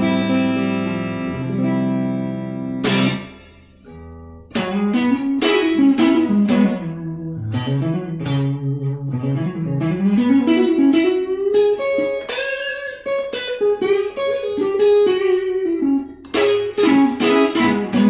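Suhr Standard Plus electric guitar played through a Boss Katana amp: a ringing chord that stops about three seconds in, then, after a brief pause, a single-note lead line of quickly picked notes with bends and slides gliding up and down in pitch.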